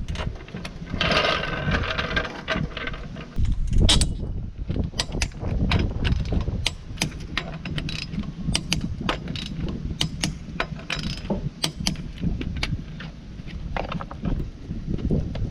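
Hand ratchet wrench clicking in uneven runs of sharp metallic clicks as fasteners are worked, with a short squeak about a second in.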